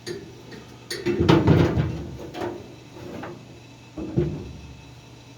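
A few hard knocks and a clatter of objects being handled and set in place, the busiest stretch about a second in and another knock about four seconds in, over a steady low hum.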